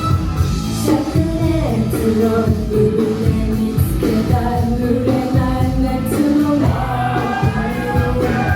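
Japanese idol group singing live over a loud pop-rock backing track with a steady beat.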